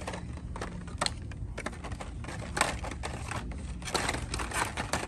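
Hot Wheels blister packs being handled on store peg hooks: scattered plastic crinkles and sharp clicks as the cards are flipped and pulled, with a few louder clicks about a second in and near the end, over a low steady hum.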